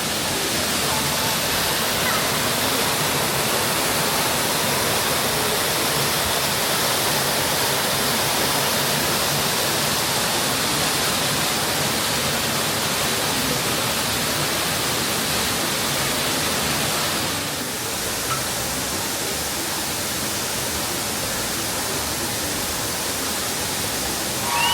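A waterfall's steady rush of falling water, dipping slightly in level about two-thirds of the way through.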